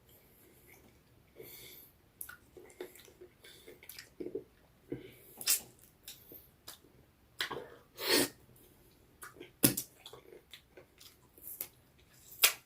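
Close-miked eating sounds: chewing, lip smacks and slurps, irregular, with a few louder, longer ones among many small wet clicks.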